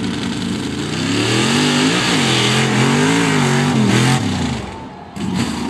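Chevy Tahoe mud truck's engine revving hard, its pitch rising and falling as the truck launches and stands up in a wheelie. The engine drops off about four and a half seconds in, then revs up again briefly near the end.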